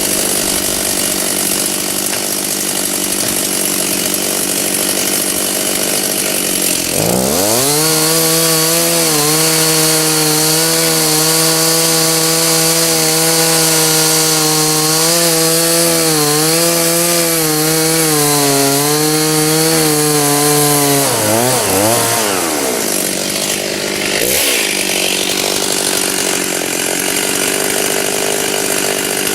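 Stihl two-stroke chainsaw cutting wood. About 7 s in it revs up to full speed, and its pitch dips and wavers as the chain bites. Around 21 s it drops back to a lower running sound.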